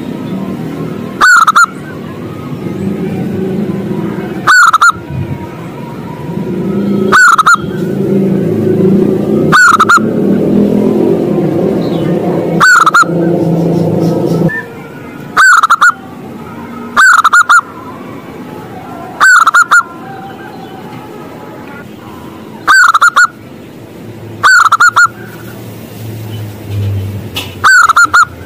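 Zebra dove (perkutut) calling: about a dozen short, loud, identical notes, each a quick rising-and-falling hook, repeated every two seconds or so. A low background rumble stops abruptly about halfway through.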